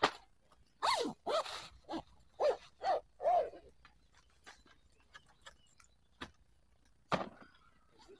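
A dog barking, about five barks in quick succession, followed by one more sharp sound near the end.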